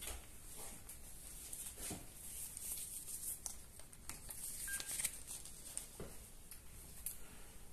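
Faint handling of a digital camera: light clicks and rustles, with one short electronic beep from the camera a little under five seconds in.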